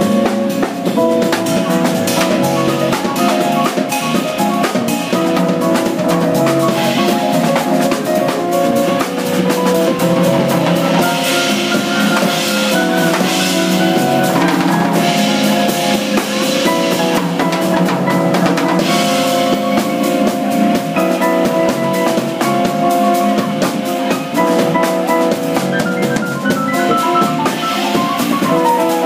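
Live instrumental jazz from a trio of drum kit, electric bass and keyboard playing together, with the drum kit prominent throughout. A quick falling run of notes comes near the end.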